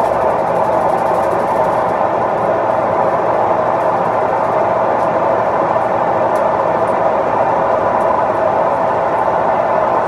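Coin-laundry machines running, giving a steady, loud mechanical drone with no change in pitch or level.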